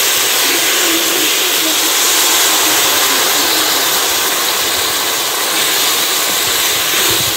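Water hitting hot ghee and sugar in an aluminium kadhai of roasted vermicelli, hissing and sizzling steadily as it flashes into steam. The hiss eases a little near the end.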